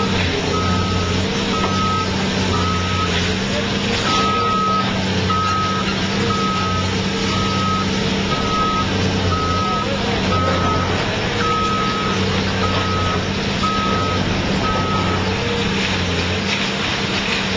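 Heavy diesel engine of a CAT demolition excavator running steadily while its attachment breaks up a concrete building wall, with a backup alarm beeping about twice a second that stops near the end. Occasional crunches of breaking concrete and falling debris run through the engine noise.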